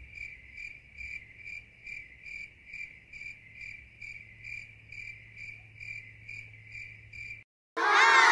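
Cricket chirping sound effect, an even run of high chirps nearly three a second, used as the comic 'crickets' cue for an awkward silence. The chirps cut off about seven seconds in, and a loud sound sliding down in pitch starts just before the end.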